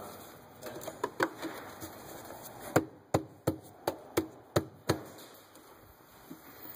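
Gloved hands knocking on the plastic breather cover on top of a 6.7 L turbo diesel engine, seating it on its freshly oiled O-rings: a few taps about a second in, then a run of about seven sharp knocks, roughly three a second.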